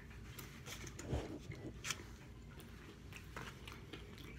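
A person chewing a mouthful of pizza close to the microphone, faint, with scattered soft clicks of the mouth.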